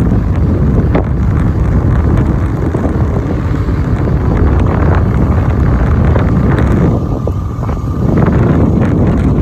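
Loud, steady wind buffeting the microphone, a dense low rumble with no let-up.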